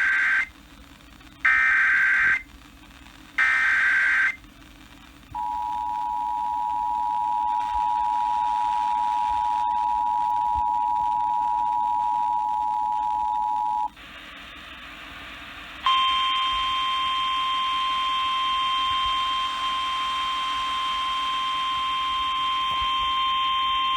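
Emergency Alert System tones: three short data bursts of the SAME header about a second apart, then the two-tone attention signal held steady for about eight seconds. After a brief pause comes the single steady 1050 Hz weather-radio alert tone. Together they herald a National Weather Service flood warning.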